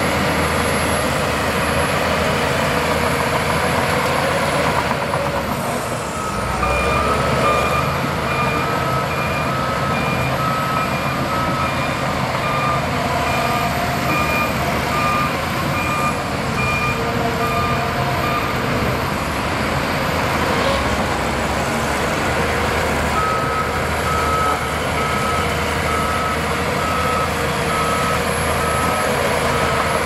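Shantui crawler bulldozer's diesel engine running steadily as it pushes soil and rock. A reversing alarm beeps at an even pace, roughly once a second, starting about six seconds in, pausing for a few seconds past the middle, then resuming near the end.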